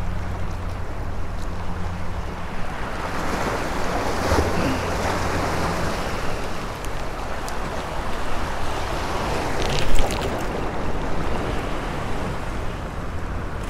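Small waves washing and splashing against granite jetty boulders, with wind on the microphone and a steady low hum under it for the first half. A brief knock sounds about ten seconds in.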